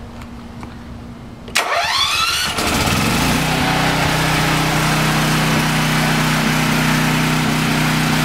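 Briggs & Stratton 15-horsepower engine on an 8000-watt portable generator starting on gasoline about a second and a half in. It rises quickly in pitch, then settles into a steady, even run with no load on it yet.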